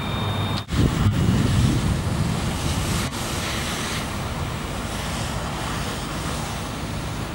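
Steady rushing hiss of a fire hose spraying water, with heavy low wind buffeting on the microphone for the first couple of seconds and brief breaks where the footage is cut.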